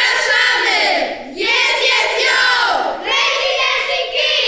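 A large group of children chanting together in unison, three loud shouted phrases with short breaks between them.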